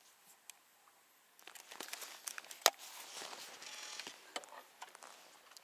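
Handling noise: rustling, shuffling and scattered clicks of fishing gear being picked up to free a snagged line, starting about a second and a half in, with one sharp click near the middle.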